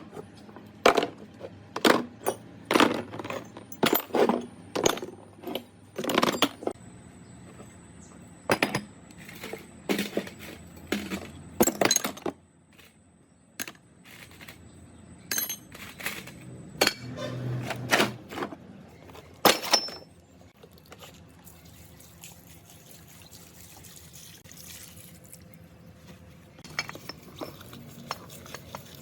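Gearbox metal parts clinking and knocking irregularly as they are handled in liquid, with water sloshing. The knocks come thick and fast for about twenty seconds, then give way to quieter sloshing with a few light clicks.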